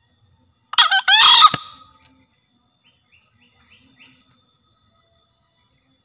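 Green junglefowl cock crowing once: a short, hoarse two-part crow, a brief first note running straight into a longer harsh one, loud and about a second long. A few faint chirps follow.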